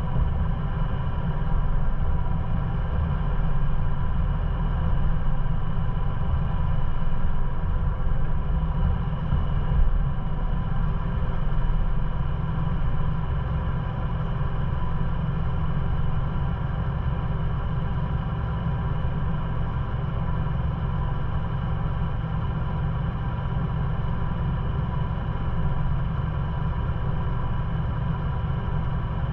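Ford Bronco engine running steadily at low revs, a continuous low rumble, as the vehicle creeps along a rocky trail and then sits idling, stopped, through the second half.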